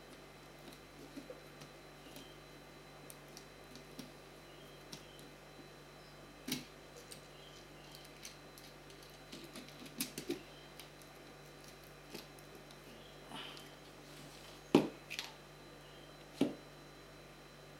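Small clicks and taps of a screwdriver, screws and metal parts being handled while fitting hardware to a battery shunt, with a few sharper knocks, the loudest about fifteen seconds in.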